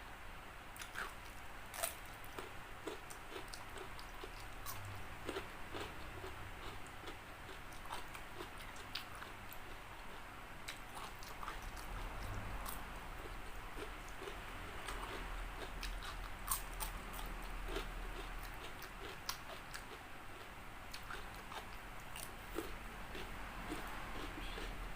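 A person biting and chewing crispy fried chicken close to the microphone, the battered coating crunching in many quick sharp crackles.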